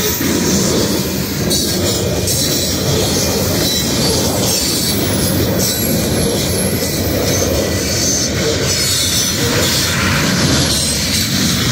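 Union Pacific coal train's hopper cars rolling past on the rails, a steady loud rumble of wheels on track.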